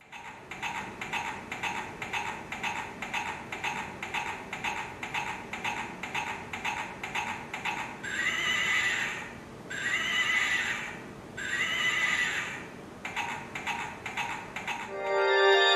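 Recorded horse sounds: a steady clip-clop of galloping hooves at about four beats a second, broken about halfway by three whinnies in a row, then the hoofbeats again.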